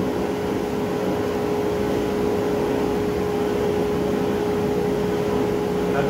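Woodshop machine motor running steadily at constant speed: a steady mid-pitched whine over an even noise, with no change in load.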